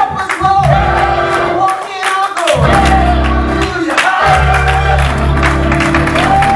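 Live gospel music: singing over a band with held notes, a steady bass line and a beat.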